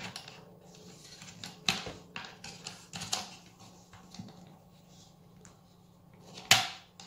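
Scattered plastic clicks and rattles from fingers handling the tool-free removable locking mechanism inside a central vacuum retractable-hose valve, with one sharp snap near the end.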